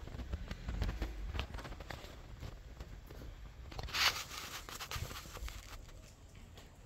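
Faint indoor room noises: scattered light clicks and knocks over a low rumble, with a short rustle about four seconds in.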